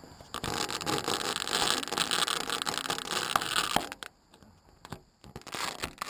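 Camera handling noise: fingers rubbing and scraping on a GoPro camera as it is grabbed, full of small clicks and knocks. The scraping is loud for about three and a half seconds, goes quieter with a few taps, then flares briefly again near the end.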